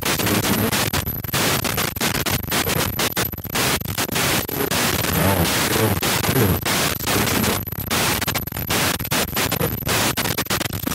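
Distorted radio transmission: a dense static hiss chopped by many brief dropouts, with faint garbled traces underneath.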